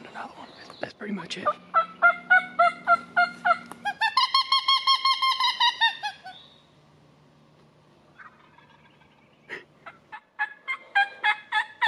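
Turkey calling: a run of yelps, then a fast gobble about four seconds in, and after a quiet spell more yelps near the end.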